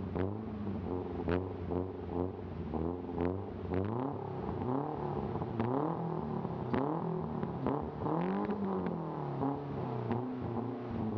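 BMW E30 318i's four-cylinder engine being revved up and down repeatedly, its pitch rising and falling every second or two, while the Subaru Upper Engine Cleaner burns off through the exhaust.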